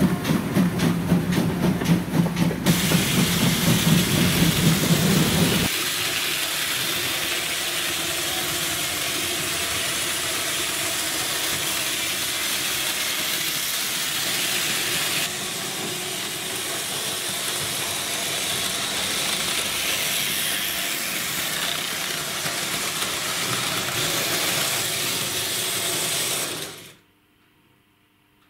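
Class 01 steam locomotive 01 519 working past with a rhythmic, pulsing exhaust beat for the first five or so seconds, followed by a long, steady hiss of steam. Near the end the sound cuts off to near silence.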